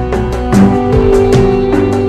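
Instrumental background music with sustained notes over a steady beat.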